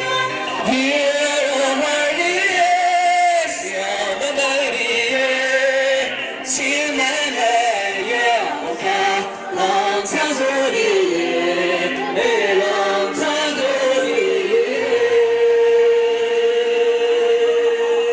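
Music with singing, a melody that ends on a long held note.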